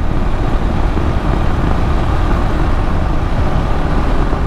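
KTM 390 Adventure single-cylinder motorcycle riding up a steep 11% grade, the engine pulling under load under a steady rush of wind and road noise.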